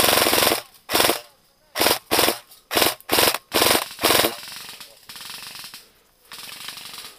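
Airsoft electric guns firing short full-auto bursts, about seven rapid rattling bursts in the first four seconds, loud and close. The firing then drops to a fainter, more continuous level.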